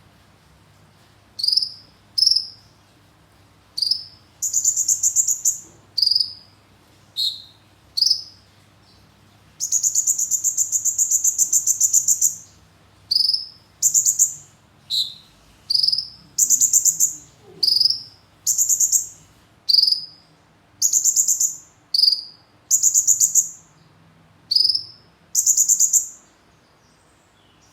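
Konin songbird singing its learned kemande call material fluently. Short high chirps alternate with longer trains of rapid, insect-like buzzing pulses, repeated in phrase after phrase with brief pauses between them.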